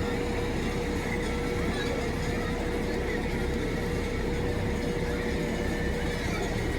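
Amusement park background: a steady mechanical hum and rumble with a constant tone, mixed with distant voices.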